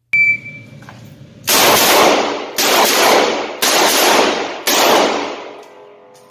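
A sharp metallic clang, then four gunshots about a second apart, each followed by a long echoing tail.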